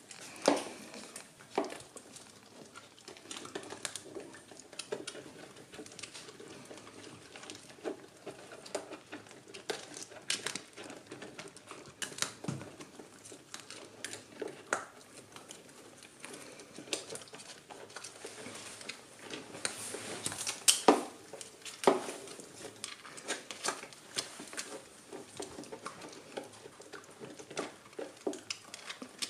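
German Pinscher puppies gnawing dried pig ears: irregular crunching and crackling bites, with a few louder cracks about a second in and again about two thirds of the way through.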